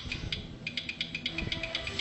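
Novoline Magic Mirror slot machine's electronic sounds: a quick run of ticking chimes, about seven a second, as a win is counted up onto the credit meter during the free games.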